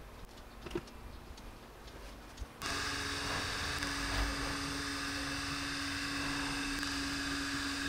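A few light clicks of small electronic parts being handled, then, about two and a half seconds in, a desktop diode laser engraver starts up with a sudden steady whir from its head's cooling fan and motors. A steady hum tone joins it about a second later.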